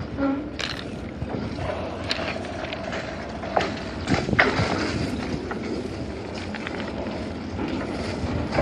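Outdoor noise of walking along a railway track: wind on the microphone, with footsteps on the ballast and sleepers and a few sharp knocks.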